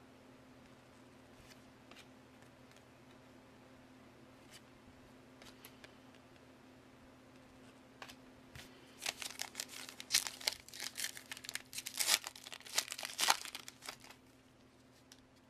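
Faint clicks of trading cards being handled, then, about eight seconds in, a foil trading-card pack wrapper being torn open and crinkled for several seconds.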